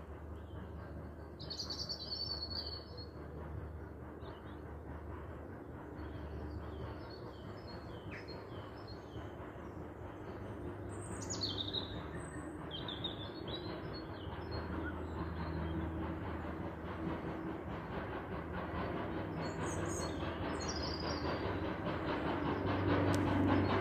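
Steam train approaching in the distance, its rumble growing steadily louder, with songbirds chirping over it.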